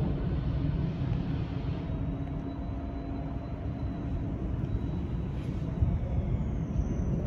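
Jet airliner flying overhead: a steady low rumble of engine noise with a faint high whine.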